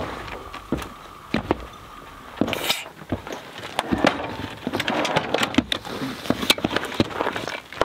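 Scattered knocks, clicks and rustling of camp gear being handled on a Jeep's roof rack: footsteps on the rack and a folding ladder being collapsed, with a brief scrape about two and a half seconds in.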